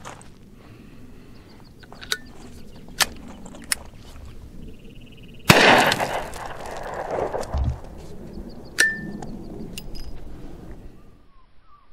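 Rossi Brawler single-shot pistol (.410/.45 Colt): a few sharp metallic clicks from working the action and hammer, then one shot about five and a half seconds in that echoes off for a second or so. More clicks follow, one of them ringing briefly, as the gun is handled again.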